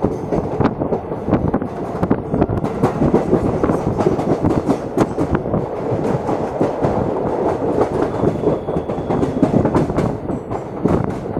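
Passenger train coaches rolling into a station, heard from an open coach door: a steady rumble of wheels on rail with many sharp, irregular clicks and clatters as the wheels run over rail joints.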